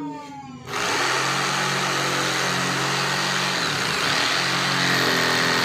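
A woodworking power machine starts running loudly and steadily just under a second in, with a low hum beneath the noise. About four seconds in the hum shifts to a slightly higher steady pitch.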